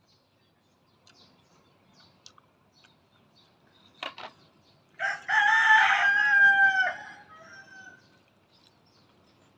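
A rooster crowing once, one long call of about two seconds that drops off at the end. A sharp click comes about a second before it.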